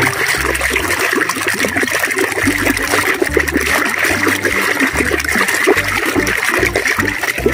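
Thick soapy foam and water sloshing and swishing as a hand churns and scrubs toys in a washtub: a steady wet churning with many small splashes.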